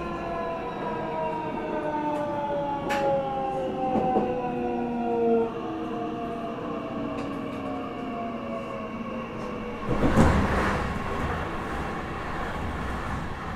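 Meitetsu 9500 series electric train heard from inside the car, its inverter-driven traction motors whining in several tones that fall in pitch together as the train slows under braking, over the rumble of wheels on rail. A brief loud rush of noise comes about ten seconds in.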